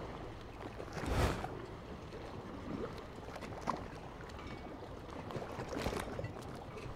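Steady watery rushing like the sea, with two louder swells of noise, about a second in and about six seconds in.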